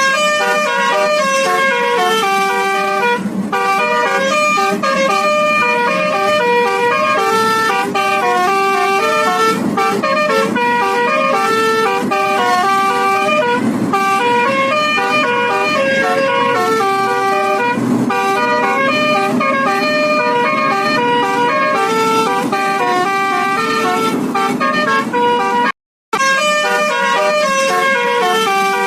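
Bus telolet horn, a Basuri multi-tone electric air horn, playing tune after tune in quick stepped notes, with a low rumble beneath. The sound cuts out for a moment near the end.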